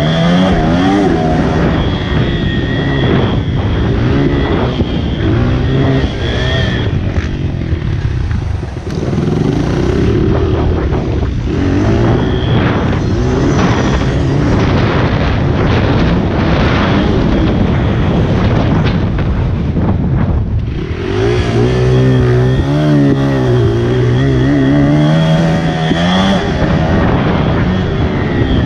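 Honda CRF80 pit bike's small four-stroke single-cylinder engine revving up and down as it is ridden hard around a dirt track. The pitch climbs and falls repeatedly through throttle and gear changes, and the throttle is briefly chopped twice before the engine revs hard again.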